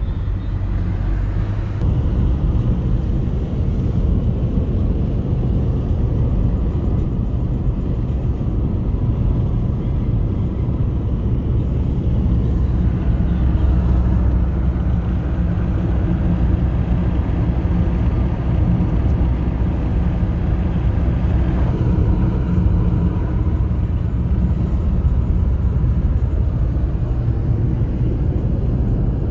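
Saab 9000 Aero's turbocharged four-cylinder engine running while the car drives at speed, heard from inside the cabin together with steady tyre and road noise.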